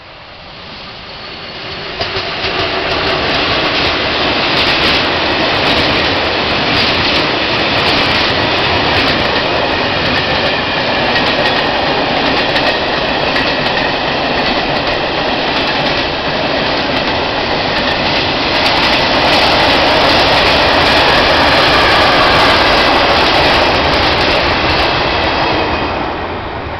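Freight train hauled by two Škoda class 230 "Laminatka" electric locomotives passing close by. The noise builds over the first few seconds as the locomotives arrive, then holds as a long string of flat wagons rolls past, with the wheels clattering over the rails. It fades near the end as the last wagons go by.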